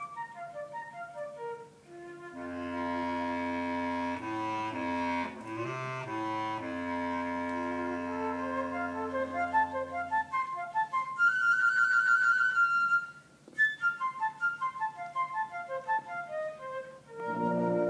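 Piccolo and tuba playing a duet. The piccolo starts with quick short high runs. About two seconds in, the tuba comes in with long low held notes under sustained piccolo notes, which last until about ten seconds. Then the piccolo plays a high trill, followed by more quick staccato runs.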